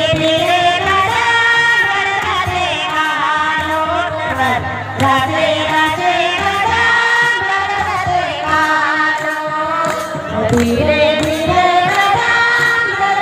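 A group of women singing a devotional song to Sarna Maa together, one of them leading on a microphone, with long held notes that slide between pitches.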